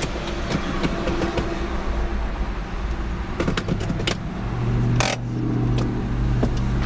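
2004 Nissan Pathfinder's 3.5-litre V6 idling, heard from inside the cabin, while the automatic gear selector is moved through its positions: a cluster of clicks, then a single sharp clunk about five seconds in.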